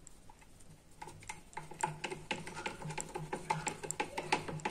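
Screwdriver turning a screw into a plastic controller box, with a quick, irregular run of small clicks and scrapes that starts about a second in.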